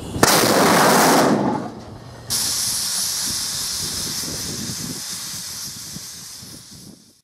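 Small hybrid rocket engine in a failed test firing: a loud rushing burst lasting about a second and a half, then a high, steady hiss that slowly fades away.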